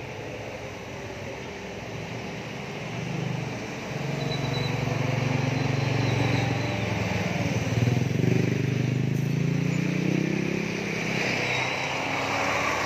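Road traffic passing close on a highway: vehicle engines swell and fade with gliding pitch, loudest in the middle, and tyre noise builds near the end as another vehicle approaches.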